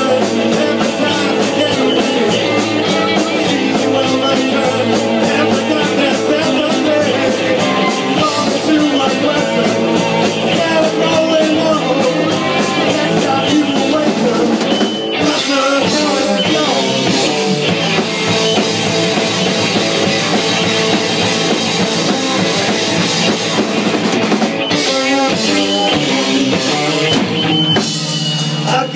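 Live rock band playing: two electric guitars, bass guitar and drum kit at full volume.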